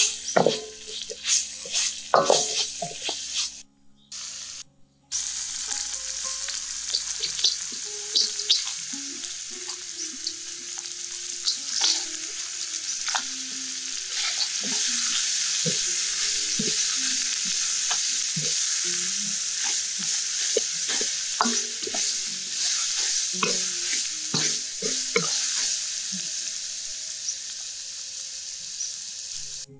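A few sharp knocks at first, then a brief silence about four seconds in. After that, steady sizzling of small crabs and snails stir-frying in hot oil in a wok, with the metal ladle scraping and clinking against the pan.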